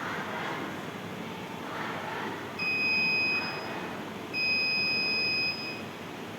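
Electronic buzzer of a student-built security alarm sounding two steady, high-pitched beeps, each a little over a second long, about two and a half and four seconds in: the alarm tripped by something passing through its sensor.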